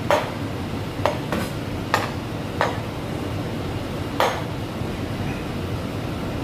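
Kitchen utensils and dishes clinking and knocking: about six sharp strikes at uneven intervals, most in the first half, over a steady low background rumble.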